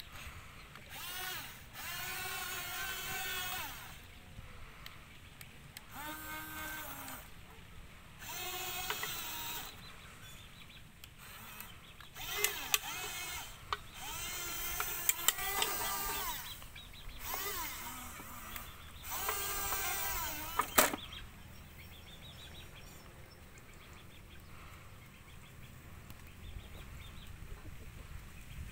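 Small electric gear motors of a radio-controlled toy excavator whining in spurts of a second or two, the pitch shifting as the tracks and arm work under load. There are a few sharp clicks and knocks of the machine against drink cans, the loudest knock about three quarters of the way through, after which the motors fall silent.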